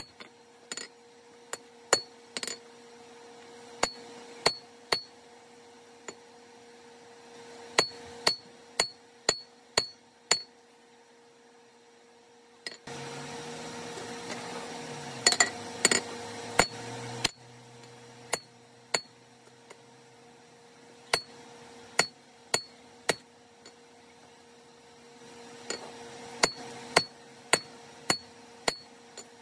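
Hand forging hammer striking a glowing 4140 steel hammer head on an anvil, in runs of a few blows about two a second with pauses between, each blow followed by a bright ring. A steady rushing noise rises for about four seconds in the middle.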